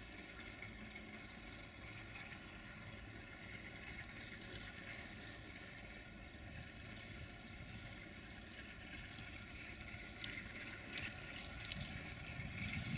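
CFR class 060-DA (LDE2100) diesel-electric locomotive approaching slowly with a freight train. Its Sulzer diesel engine runs with the steady whistling note that earns the class its nickname "Fluieroasa" (the whistler). The sound grows louder toward the end as the locomotive nears, with more low rumble.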